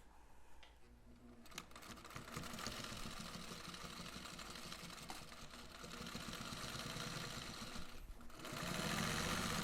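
Sewing machine stitching a zipper seam: it starts about a second and a half in, runs steadily, stops briefly near the end, then runs again faster and louder.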